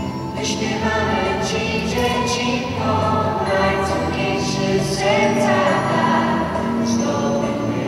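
A small group of young singers singing a Polish Christmas carol (kolęda) together in several voices into microphones, with held notes.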